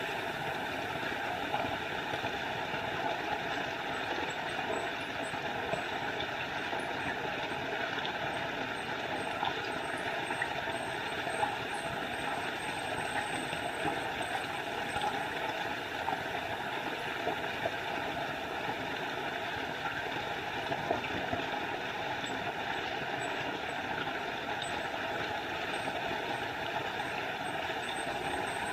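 Small forest waterfall: water pouring and splashing steadily.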